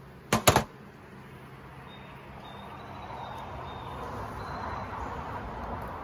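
Two sharp knocks in quick succession within the first second, from beehive equipment being handled and knocked, then a soft hiss that slowly grows louder.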